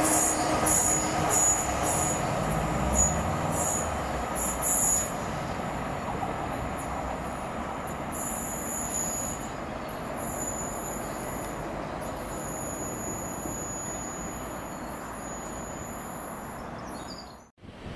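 Class 66 diesel locomotive and its train of engineering wagons passing and moving away: engine noise with wheels clicking regularly over the rail joints for the first few seconds, then fading to a steady rushing noise.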